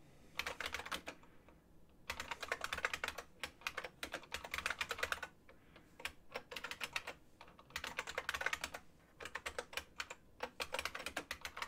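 Computer keyboard typing in fast runs of keystrokes, broken by a few short pauses of under a second.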